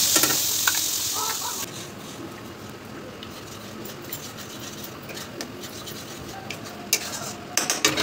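Ground spice paste sizzling loudly as it goes into hot oil in a metal kadhai, the hiss fading over the first couple of seconds. Then a metal spatula stirs and scrapes the paste around the pan, with a few sharp clicks near the end.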